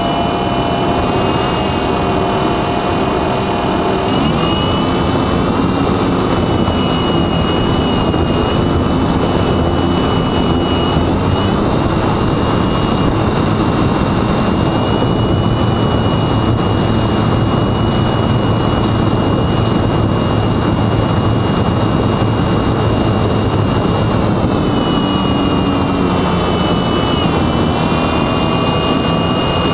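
Brushless electric motor of a mini Talon flying wing (Sunnysky X2220 turning a 9x7.5 propeller) whining steadily, its pitch stepping up and down a few times with throttle changes, under a heavy rush of wind and airflow noise.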